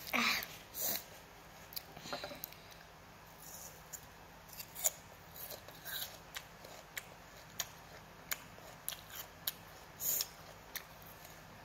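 A child chewing a mouthful of spicy instant noodles, with many short clicks and smacks of the mouth, close to the microphone. A tissue rustles briefly twice within the first second.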